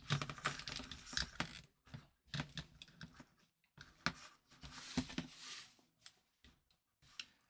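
Small plastic zip tie being threaded and pulled tight around a metal bracket on a car central-locking actuator: irregular runs of ratcheting clicks and plastic handling, with a longer scratchy rustle about five seconds in.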